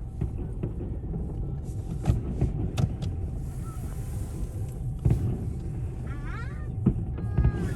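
Steady low rumble of a car in slow traffic heard from inside the cabin, with a few short sharp thumps scattered through it.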